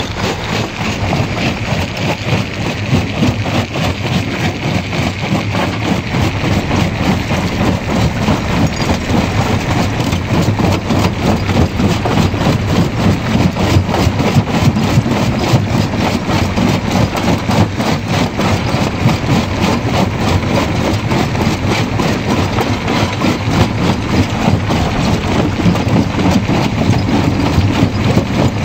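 Stone jaw crusher running and crushing rock: a steady heavy mechanical rumble packed with rapid clattering and cracking of stone in the jaws. It grows somewhat louder over the first several seconds.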